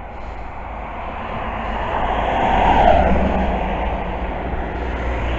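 A road vehicle passing close by, its engine and tyre noise swelling to a peak about three seconds in and then fading.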